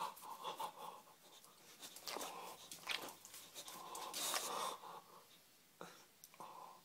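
Boxer dog breathing in short, noisy breaths, with a couple of brief clicks near the end.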